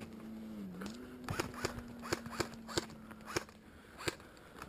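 Airsoft pistol firing single shots: about eight sharp cracks at uneven spacing, starting about a second in, under a steady low hum.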